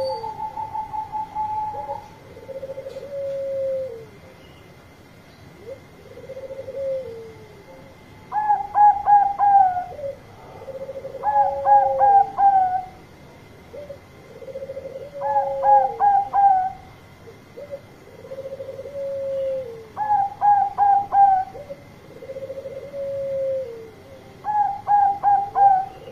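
Zebra dove cooing: a low drawn-out coo that falls at its end repeats about every four seconds. Between the coos come five loud bursts of four or five quick, higher staccato notes.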